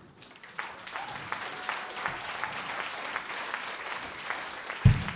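Theatre audience applauding, the clapping starting about half a second in, with a single heavy thump near the end.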